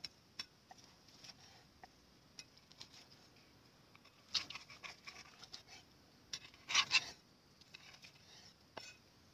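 Steel cleaver cutting grilled pork on a wooden chopping board: scattered knocks of the blade on the board and short crunchy cuts. The strokes bunch together about four and a half seconds in and are loudest about seven seconds in.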